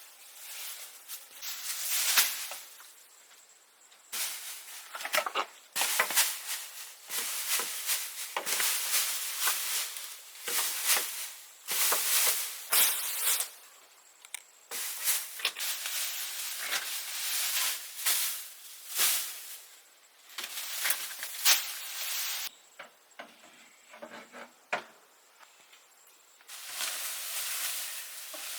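Repeated short scraping strokes, irregular in timing, with brief pauses between runs of them.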